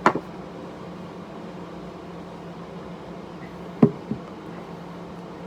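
Steady low hum of a fan, with a sharp knock right at the start and another about four seconds in, followed by a lighter one.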